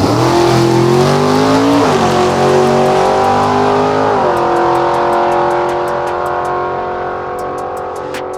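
A car engine accelerating hard through the gears. Its pitch climbs, drops sharply at two shifts about two and four seconds in, then holds steady and slowly fades.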